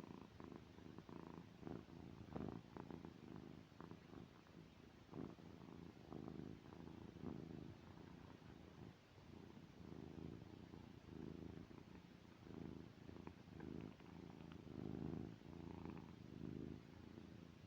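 Domestic cat snoring: a faint, low rumble that swells and fades in short repeated pulses.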